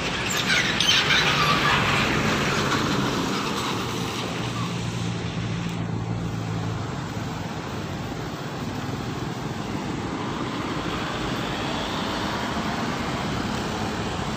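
Parked coach's diesel engine idling steadily with a low hum. A passing car swells loudly and fades in the first few seconds.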